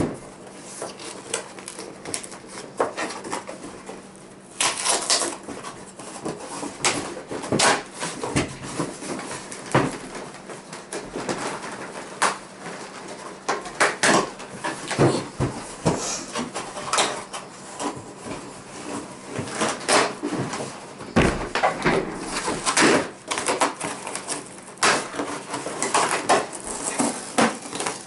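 Cardboard shipping box being pulled open and rummaged through: irregular rustling and scraping of cardboard with many sharp knocks and clatters.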